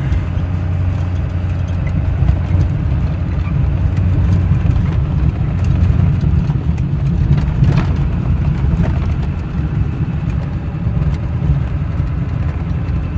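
Steady low rumble of a running vehicle engine with road noise, with a few light knocks about eight seconds in.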